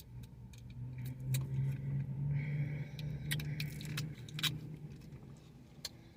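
A car running close by, its low hum swelling and then fading as it passes, with light clicks and rattles up close.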